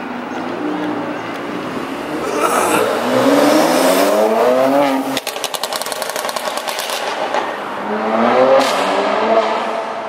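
Mercedes-AMG C43's twin-turbo V6 with a Renntech tune accelerating past, its exhaust note rising in pitch; about five seconds in the driver lifts off and the exhaust lets out a fast string of overrun crackles and pops for about two seconds, then the note rises again near the end.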